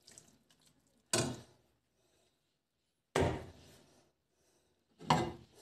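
Metal ladle scooping stewed cabbage and pork in a pan: three short knocks and scrapes, about a second in, about three seconds in, and near the end.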